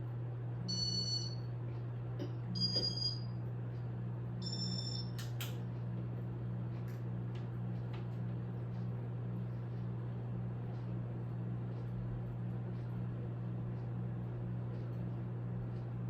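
Steady low hum of a Casablanca Spirit of Saturn ceiling fan's motor running, with three short high electronic beeps about a second and a half apart in the first few seconds.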